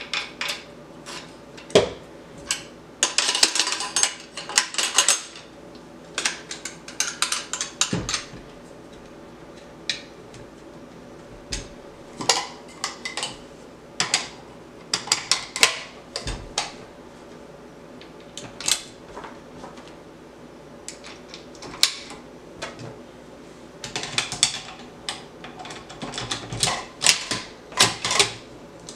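Metal-on-metal clicks and clatter as parts of a Nemesis Arms ANSR bolt-action rifle are handled and fitted together by hand, with the bolt worked at the action. Scattered sharp clicks with several runs of quick rattling clicks.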